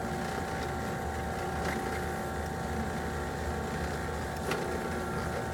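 Skil benchtop drill press motor running steadily with an even whine of several tones, as the bit is fed down to drill a pilot hole in a thin aluminium panel. A couple of faint clicks occur about two and four and a half seconds in.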